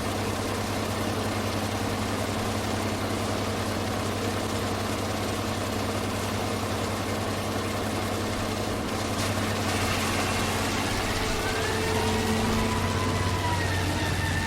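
Bulldozer diesel engine running steadily with a low hum. About ten seconds in it picks up and gets a little louder, with a whine that rises in pitch and then holds.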